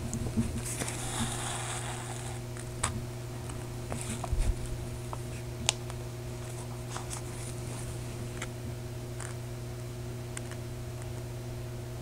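Hand-stitching: soft rustling and small clicks as a needle and upholstery thread are pulled through stiffened cloth and the work is handled, over a steady low electrical hum.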